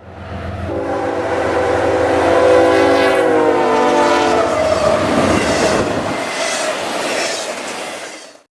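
Train horn sounding one long chord of several tones for about four seconds, dropping slightly in pitch toward its end, as a train passes. The rumble and clatter of the train follow and cut off near the end.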